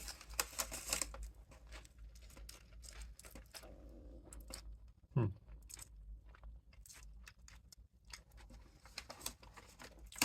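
Biting into and chewing a fried curry bread, with small crunches and crackles close to the microphone, thickest at the first bite. A brief falling sound comes about five seconds in.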